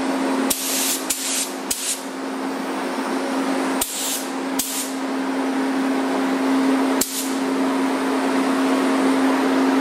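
Gravity-feed automotive paint spray gun hissing in short bursts as the trigger is pulled and released over car body moldings: several bursts in the first five seconds and one more about seven seconds in. A steady low hum from the paint booth's ventilation runs underneath.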